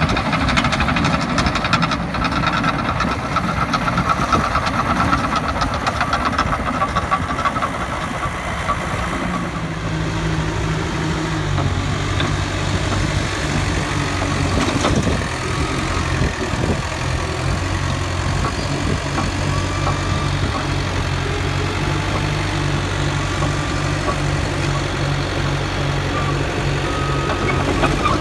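Caterpillar D4K2 LGP crawler dozer's diesel engine running as the dozer works, with a rattly, clanking texture. From about ten seconds in it settles to a steady idle.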